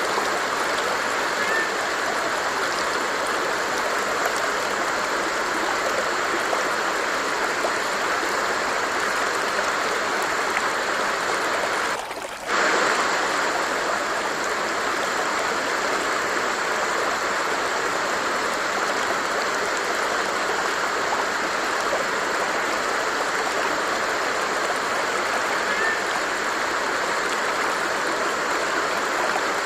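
Stream water flowing and rushing steadily, with a brief dip in level about twelve seconds in.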